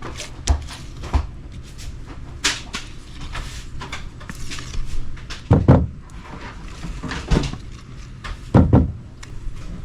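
Kitchen clatter: a string of light knocks and clicks from cupboard doors and utensils being handled, with two heavier thuds about five and a half and eight and a half seconds in, over a steady low hum.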